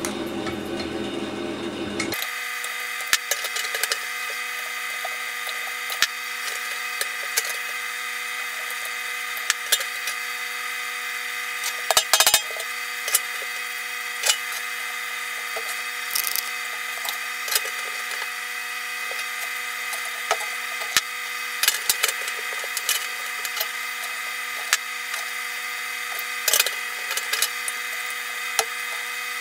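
Scattered clicks, knocks and light scrapes of a thin sheet-metal patch being bent by hand and tried against a steel fuel tank, over a steady background hum. A short cluster of sharper knocks comes about twelve seconds in.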